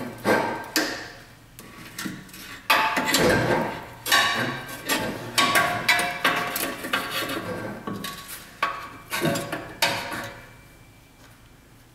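Metal clanking and ringing as the cut exhaust pipe is knocked and worked off its hangers: a string of sharp knocks with a metallic ring, dying away near the end.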